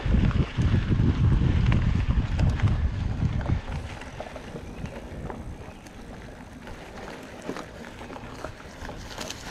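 Riding a mountain bike on a dirt trail: wind buffeting the microphone in a loud low rumble that drops away about three and a half seconds in, leaving tyre noise and scattered small clicks and rattles from the bike.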